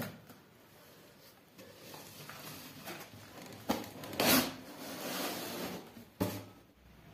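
Corrugated cardboard shipping box being opened by hand: the flaps are pulled apart and folded back, with the cardboard scraping and rubbing and a few sharp knocks. The loudest scrape comes a little after four seconds in.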